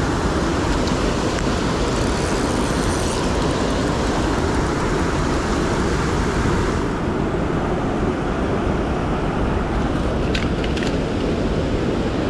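Steady rushing noise of stream water, with a few faint clicks about ten seconds in.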